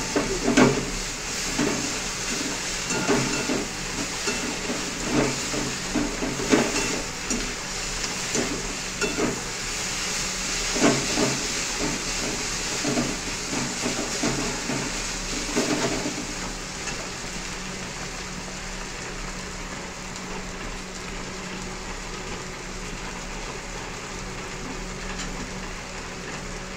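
Sliced onions sizzling in hot oil in a karahi, with repeated scraping and knocking of a metal spatula stirring them against the pan for the first sixteen seconds or so, then steady sizzling.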